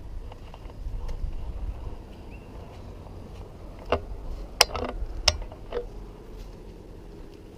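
A low rumble that fades after about two seconds, then a quick run of about five sharp clicks and knocks about four seconds in.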